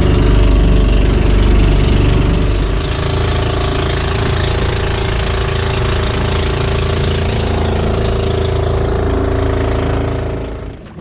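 Engine of a motorized outrigger fishing boat running steadily, its low drone easing about three seconds in, then shut off near the end.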